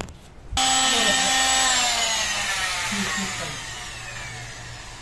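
A corded handheld power tool's motor whine cuts in abruptly about half a second in, then falls in pitch and fades as the motor winds down, leaving a faint low hum.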